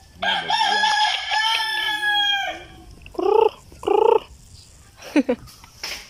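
A rooster crows once, a long call that trails down in pitch at the end, followed by two short calls from the chickens in the pen.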